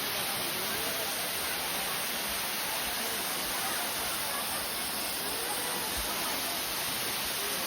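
Waterfall rushing: a steady, even roar of falling water, with faint voices far off.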